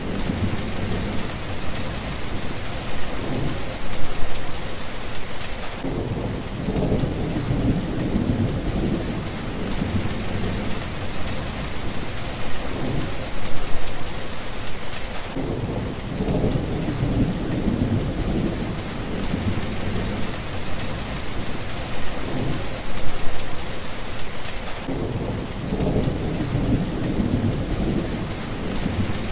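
Heavy rain pouring steadily, with thunder rumbling low and rolling on under it, swelling about every nine to ten seconds.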